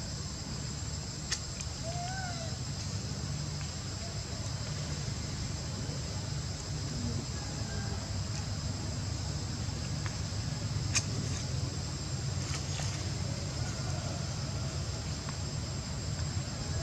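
Steady high-pitched buzzing of insects over a low, even rumble. Two sharp clicks and a few faint, short chirping calls stand out.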